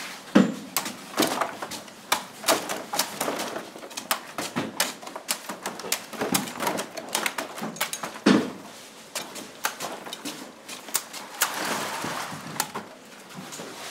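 Knives chopping young green coconuts: quick, irregular sharp chops, several a second, with a few heavier strikes, as coconuts are cut from their stalk bunches and their husks trimmed on a wooden block.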